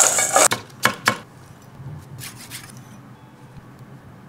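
Togarashi sprinkled over crispy fried calamari rings in a stainless steel bowl: a brief rustling hiss, then two sharp clicks about a second in.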